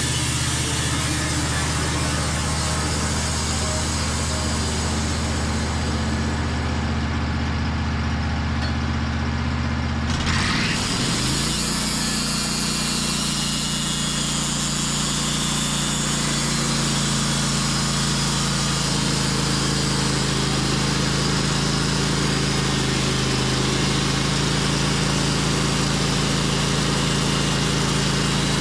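Portable sawmill's engine running steadily while it saws a black walnut log into slabs. About ten seconds in, the engine note shifts and then holds steady again.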